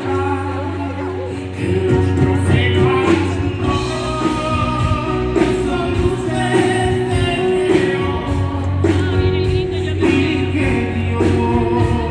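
A live band playing a slow rock ballad with singing over it; the music gets louder, with drum strikes, about one and a half seconds in.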